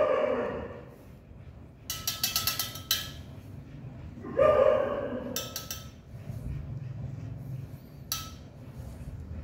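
A dog cries out in a drawn-out howl at the start and again about four and a half seconds in, in pain as a maggot-infested wound is picked clean. Between the cries, steel forceps clink against a stainless steel kidney dish in short rattling runs: around two seconds in, at five and a half seconds, and once more just after eight seconds.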